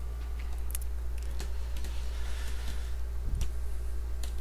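A few scattered computer keyboard keystrokes, isolated clicks about a second apart, over a steady low electrical hum.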